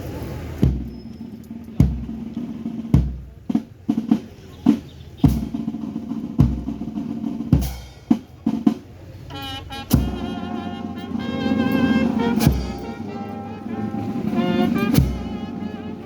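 A band playing a slow march: a bass drum strikes about once a second with snare drum rolls and strokes between. About nine seconds in, wavering brass tones join the drums.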